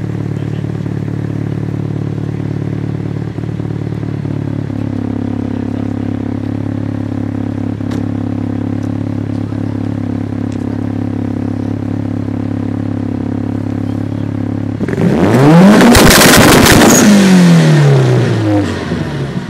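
Mitsubishi Lancer Evolution IX's turbocharged four-cylinder idling steadily at the exhaust, its idle note lifting slightly about five seconds in. About fifteen seconds in it is revved hard once: the pitch climbs quickly, holds briefly at its loudest, then falls back to idle over a few seconds.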